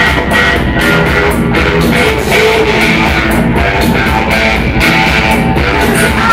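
Live rock band playing loud: electric guitar and electric bass guitar over drums keeping a steady beat.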